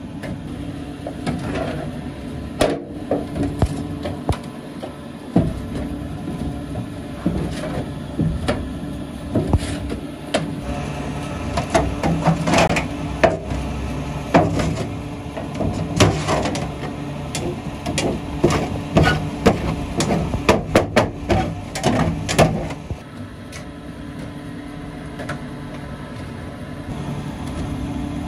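Electric-motor-driven horizontal paddle mixer running with a steady hum while a metal hand scraper knocks and scrapes irregularly against its steel trough and paddles, pushing in detergent powder. The knocking stops a little before the end, leaving only the mixer running.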